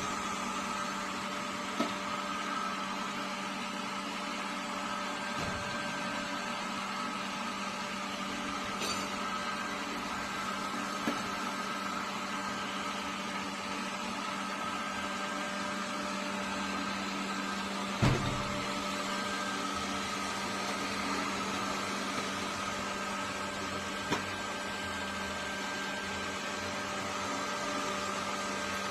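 Robot vacuum cleaner running: a steady motor whir and hum with fixed tones, broken by a few short knocks, the loudest one about two-thirds of the way through.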